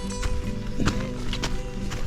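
Background music: held notes over a light, clip-clopping percussive beat.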